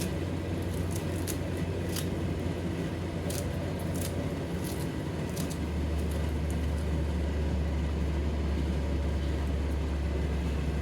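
A steady low rumble, with a few light clicks in the first half; the rumble shifts a little deeper about six seconds in.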